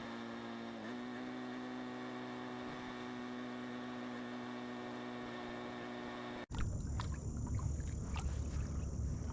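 A small motor's steady, even hum, stepping up slightly in pitch about a second in. It cuts off abruptly after about six and a half seconds, giving way to outdoor noise with scattered light clicks and knocks.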